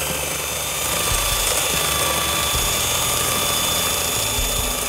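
Electric hand mixer running at a steady whine, its beaters whisking eggs and sugar in a stainless steel bowl.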